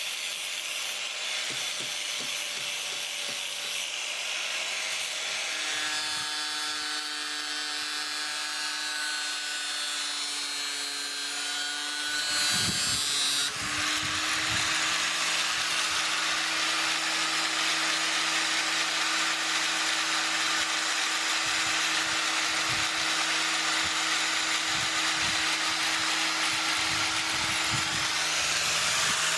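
Belt sander running, with the steel blank of a rail spike knife being ground against the belt: a steady motor hum under the hiss of grinding. The sound shifts about thirteen seconds in and is a little louder after that.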